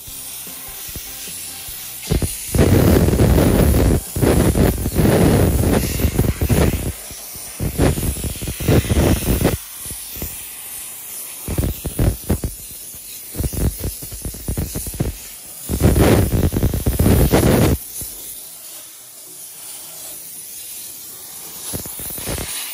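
Dry-steam cleaner lance hissing, with repeated loud blasts of a few seconds each as the steam is triggered on and off against engine-bay parts.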